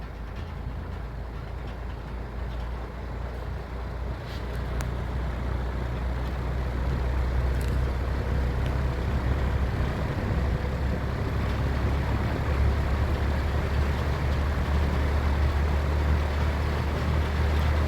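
Late-1950s Markel 20-inch metal-bladed box fan running, a steady motor hum with the rush of air from its blades. It grows louder over a few seconds in the middle, then holds steady.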